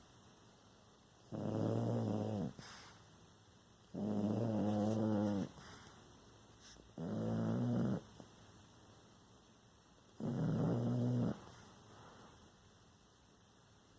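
A pet snoring while awake: four rasping snores, each about a second long and a few seconds apart.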